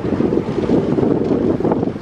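Wind buffeting the microphone: a loud, gusty rumbling noise that rises and falls in quick surges.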